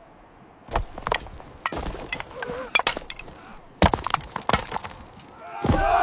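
Irregular sharp clacks and cracks of ibex hooves striking bare rock. Near the end a crowd of men breaks into a loud shout together.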